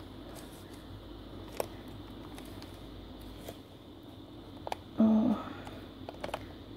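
Quiet handling of paper journal pages and small metal charms and clips, with a few light clicks. A short murmur of a woman's voice about five seconds in.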